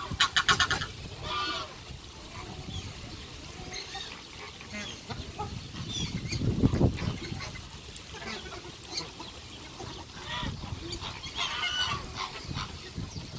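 Mixed waterbirds calling: a fast cackling run of goose-like honks at the start, then scattered honks and short calls. A low rumble about halfway through is the loudest moment.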